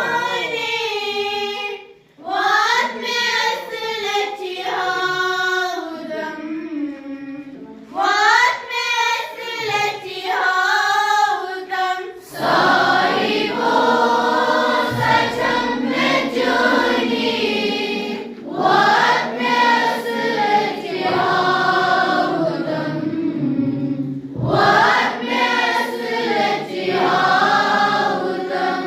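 A group of voices singing a prayer song in unison; the sound grows fuller from about twelve seconds in.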